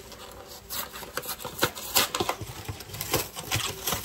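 Plastic snack packaging rustling and crinkling as individually wrapped snacks are handled, with irregular crackles and taps.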